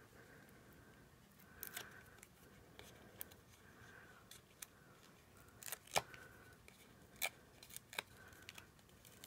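Faint, scattered clicks and taps of cardstock being handled and pressed down by hand: a paper circle on foam adhesive dimensionals stuck onto a card front. The loudest click comes about six seconds in.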